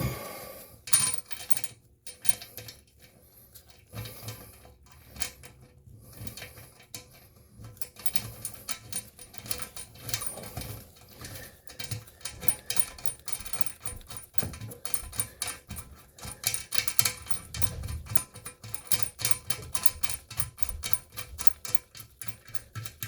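Metal washer and nut being worked onto a toilet tank bolt: small metallic clinks at first, then rapid, continuous clicking as the nut is tightened down, about a third of the way in.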